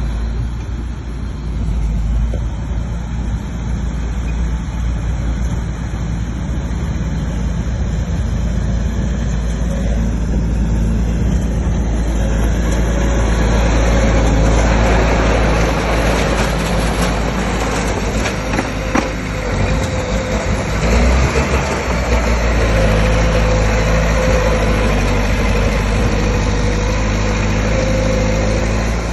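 Bulldozer's diesel engine running steadily, growing louder and rougher about halfway through.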